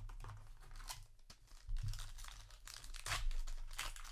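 Plastic foil wrapper of a trading-card booster pack crinkling and tearing as it is handled and opened, in irregular crackles that grow louder about three seconds in.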